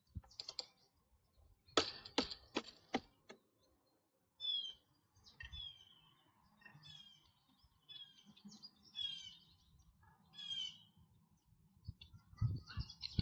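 Songbirds chirping over and over in short falling notes, with a quick run of four or five sharp clicks about two seconds in, and a few low knocks near the end.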